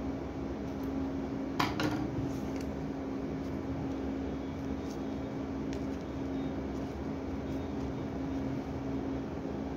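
A steady low machine hum, with faint crinkling and a few clicks from hands handling shiny foil ribbon on a cardboard ring. The sharpest click comes about a second and a half in.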